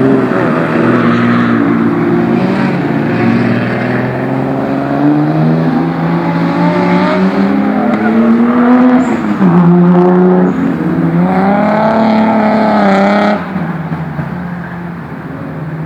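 Naturally aspirated Nissan RB26 straight-six on six individual throttle bodies, in a 240Z, accelerating hard: the revs climb steadily, drop sharply at a gear change about nine seconds in, climb again, then fall away and quieten as the throttle is lifted near the end.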